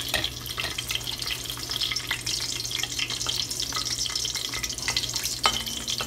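Whole garlic cloves sizzling and crackling in hot oil in a cast-iron pot as they brown, stirred with a metal slotted spoon. One sharp metallic clink with a brief ring comes about five and a half seconds in.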